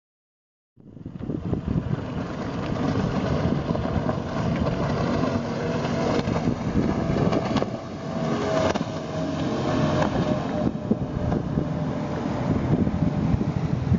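Three Yamaha 350 V8 outboards running under way on a Magnum Marine 38 powerboat: a steady engine drone mixed with rushing water and wind buffeting the microphone. It cuts in suddenly about a second in.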